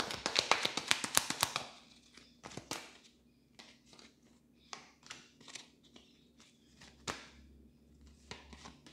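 A tarot deck being shuffled by hand: a quick run of dense card clicks in about the first second and a half, then scattered single card clicks and taps.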